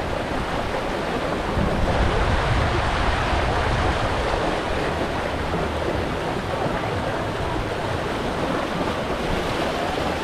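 Steady rush of flowing, splashing water, an even noise with no distinct events.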